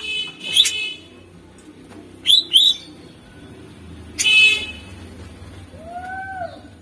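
Greater green leafbird (cucak ijo) singing a broken string of separate notes: harsh, buzzy chatters, two quick down-slurred chips, and near the end two low arching whistles.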